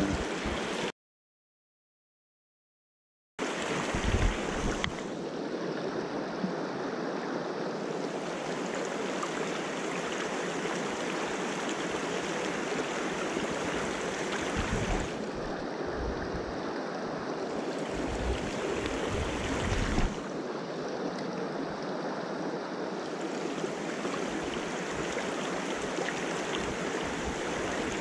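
Mountain stream running over rocks in shallow riffles: a steady, even rush of water, with a few brief low bumps. The sound cuts out completely for about two and a half seconds, starting about a second in.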